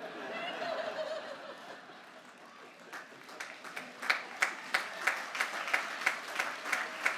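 Large audience laughing at a joke, the laughter dying away, then applause starting about three seconds in, with one nearby clapper's claps standing out about three times a second over the crowd's clapping.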